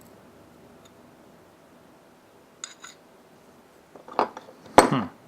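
Small metal parts of a folding knife, taken off during disassembly, clinking and being set down on a hard surface: two light ringing clinks about halfway through, then two sharper clacks near the end, the last one the loudest.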